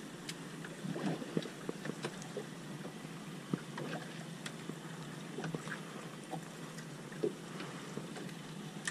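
Sea water lapping and splashing against the side of a small fishing boat, with scattered light clicks and knocks.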